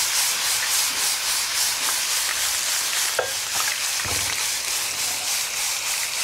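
Stir fry sizzling in a hot frying pan on a gas burner while it is stirred with a wooden spatula: a steady hiss with regular scraping strokes, a few a second.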